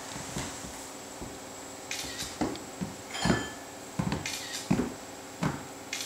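A toddler's footsteps in oversized running shoes, clumping on a hardwood floor. The irregular steps start about two seconds in and come a couple a second.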